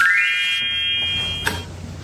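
Electronic chime sound effect: a bright tone of several notes that sweeps up quickly, holds for about a second and a half, and ends with a click.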